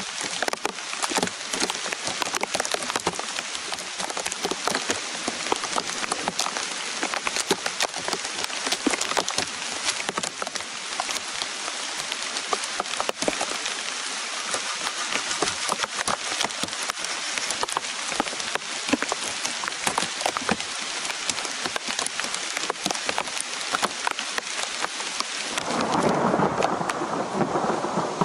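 Heavy rain falling steadily on forest foliage: a dense hiss with close drops pattering. About two and a half seconds before the end it turns to a duller, deeper rushing sound.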